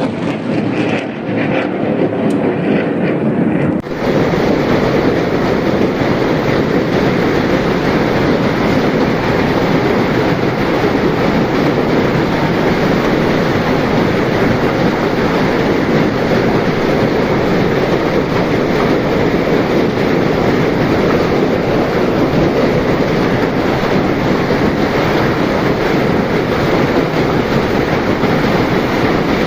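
Steady, loud roar of a storm: heavy rain and wind, with no breaks. About four seconds in the sound changes abruptly to a denser, even roar.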